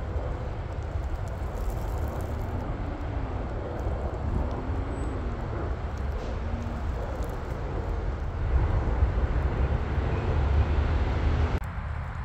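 Steady rumble of highway traffic from the surrounding interstate, with faint rising and falling tones from passing vehicles. Near the end it drops abruptly to a quieter rumble.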